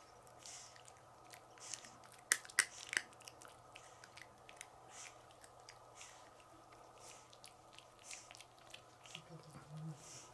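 Pug puppy chewing and gnawing on a plush toy: faint, irregular wet mouthing sounds and soft clicks, with a few sharper clicks about two to three seconds in.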